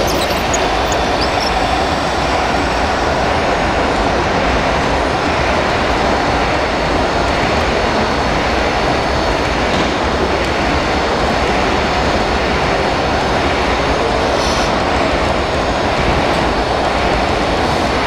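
Small electric motors and gear drives of 1/14-scale RC construction machines running steadily, with a continuous mechanical whir and clatter.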